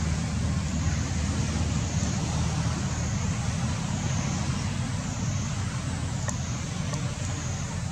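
Steady outdoor background rumble with a high, even hiss above it that swells and fades slowly every couple of seconds.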